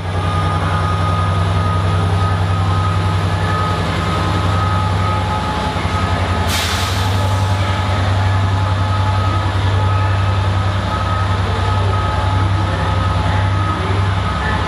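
Class 67 diesel locomotive's two-stroke V12 engine running under load with a steady low hum while it propels its train away. About halfway through there is a short sharp hiss.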